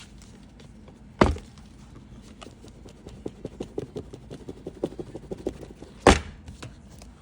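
Cardboard iPad box being shaken to slide it out of its lid: a run of small rattling knocks, several a second, through the middle, with two loud knocks, one about a second in and one near the end.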